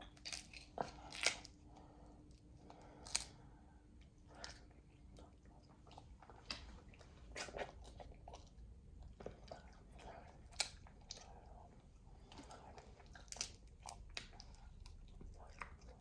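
Close-up eating sounds: chewing, with irregular sharp cracks and clicks from Dungeness crab and steak being bitten and eaten. The loudest cracks come in the first few seconds.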